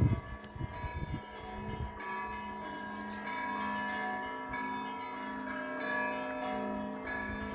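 Orthodox church bells pealing: several bells of different pitches are struck again and again, their ringing tones overlapping under a steady low hum. A low rumble sits beneath the bells in the first couple of seconds.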